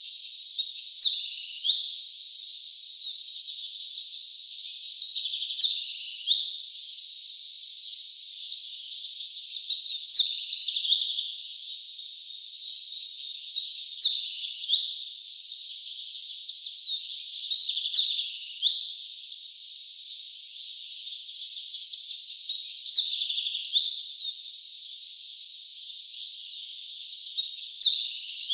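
Rainforest ambience: crickets keep up a steady, high, pulsing chirr, while a bird repeats a pair of high, downward-sliding calls about every four to five seconds.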